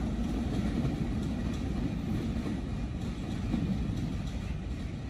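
Benapole Express passenger train pulling out of the station, its carriages rolling past with a steady rumble and a few faint clicks from the wheels.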